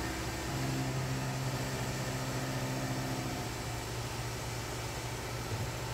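Tormach PCNC 1100 CNC mill running steadily with a low hum while an end mill cuts 4140 steel. An even hiss from the air-driven mist coolant sits under it.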